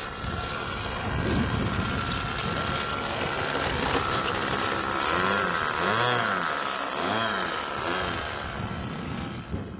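Radio-controlled model aeroplane's motor and propeller whining in flight, its pitch swooping up and down several times in the second half as it passes and manoeuvres.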